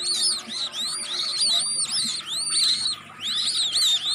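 Newly hatched white-breasted waterhen (ruak-ruak) and quail chicks peeping: a steady run of high, arching cheeps, about three a second, with one short pause a little past the middle.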